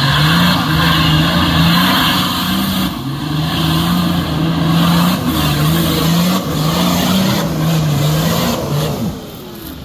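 Off-road 4x4's engine revving hard under load in deep mud, the revs rising and dipping again and again as it works up a rutted track. It falls away about nine seconds in.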